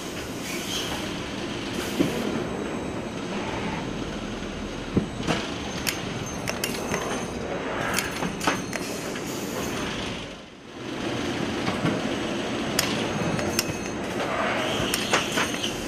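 Automatic film-wrapping bundling machine running, with a steady mechanical din from its conveyors and drives and frequent sharp clacks and knocks on top. The noise dips briefly about ten seconds in.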